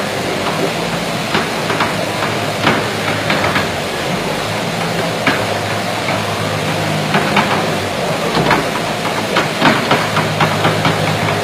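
Compact wheel loader running under a steady engine hum, with repeated knocks and clatter as its bucket scrapes bedding and muck along the floor.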